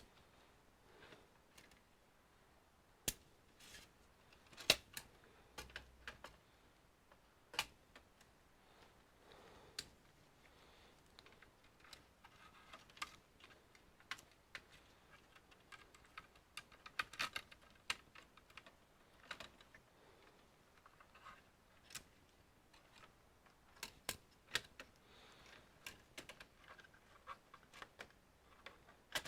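Sparse, irregular small clicks and taps of plastic and metal computer parts being handled during disassembly, a few of them sharper, with a busier run of light clicking around the middle.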